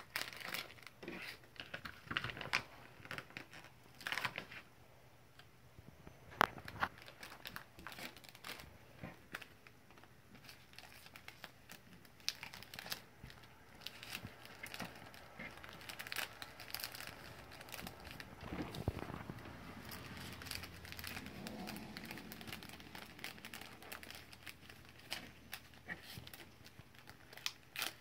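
Thin clear plastic bags crinkling as small hands handle and fold them around tea bags, in irregular crackles throughout.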